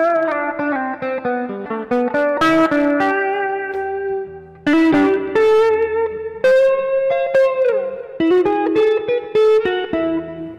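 Stratocaster-style electric guitar played solo: a quick run of single-note lead lines, plucked note after note, with a long held note that slides down in pitch about three-quarters of the way through.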